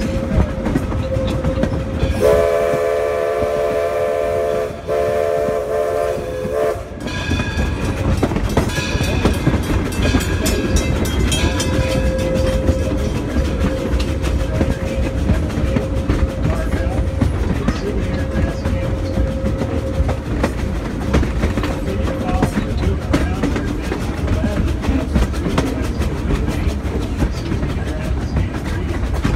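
Steam locomotive running with a steady rumble and clickety-clack of wheels on rail joints. Its whistle blows two long blasts, starting about two seconds in.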